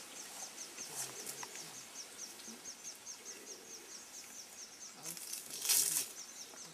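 An insect chirping steadily in a quick even rhythm, about four high chirps a second, with a few faint low grunts. About five and a half seconds in comes a brief burst of noise, the loudest sound.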